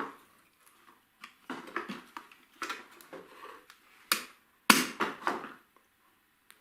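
Irregular knocks, clicks and clatter of hard objects being handled and set down, with rustling between them; the loudest knock comes a little under five seconds in.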